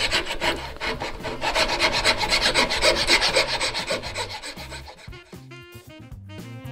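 Flat hand file rasping back and forth across the end grain of a guitar neck's wooden tenon, taking it down. The filing strokes thin out about five seconds in, as music comes up near the end.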